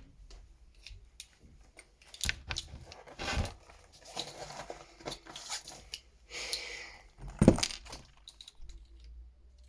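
Small coloured pencils clattering and clicking against each other as a handful is taken out, with a short rustle a little after the middle and a louder knock soon after.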